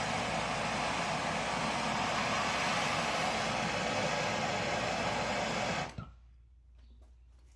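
Plumber's soldering torch burning with a steady hissing roar while heating a copper pipe joint before the solder is applied. It stops abruptly about six seconds in.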